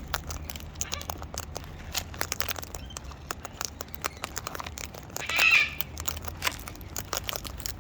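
Cockatoos feeding at close range: scattered sharp clicks and cracks of beaks working nuts and seed, with one short squawk about five seconds in.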